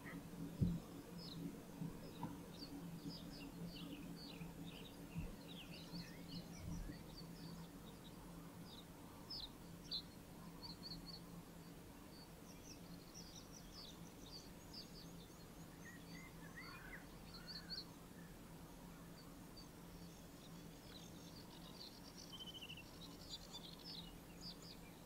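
Small birds chirping and calling, faint and continuous, in many short high notes. A low steady hum runs underneath, and a few soft knocks come in the first seven seconds.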